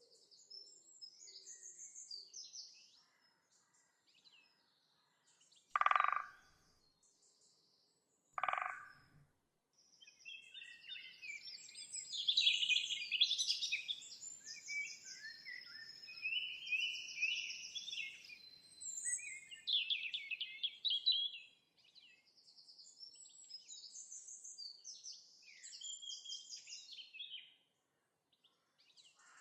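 Songbirds chirping and singing: many short high-pitched chirps and trills, busiest through the middle. Two short, louder, lower calls come early on, a couple of seconds apart.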